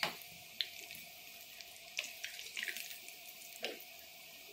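Gulab jamun dumplings deep-frying in hot oil in a kadai: a steady sizzle. A slotted metal spoon knocks and scrapes against the pan several times as it turns them, the sharpest strokes right at the start and about half a second in.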